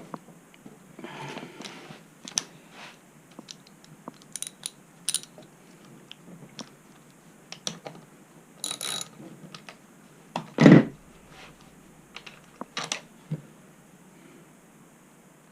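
Hand tools and metal parts clicking and knocking in scattered, irregular strokes during reassembly work, with one much louder knock about ten and a half seconds in.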